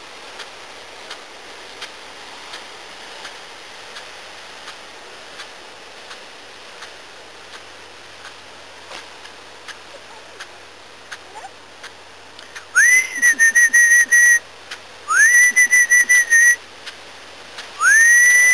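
A whistle blown in three long blasts a couple of seconds apart, each sweeping quickly up to a steady high note and held for about a second and a half; the first two flutter. The blasts call the dogs. Before them there is only a faint hiss with soft, regular ticks.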